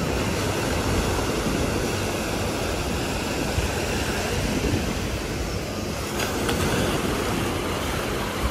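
Ocean surf breaking and washing up a sandy beach, a steady rush of water.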